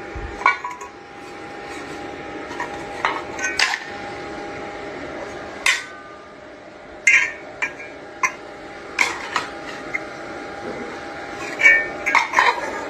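Scattered clinks and clatters, like dishes or cutlery being handled, over a faint steady hum; the clinks come thickest near the end.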